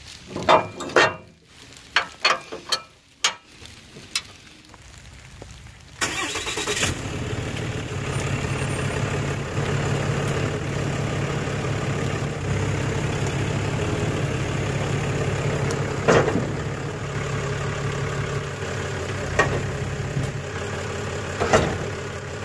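A few sharp metal clanks and knocks from the steel plow mount being handled. About six seconds in, the truck's 6.7-litre Cummins turbo-diesel straight-six comes in suddenly and idles steadily, with occasional metallic knocks over it.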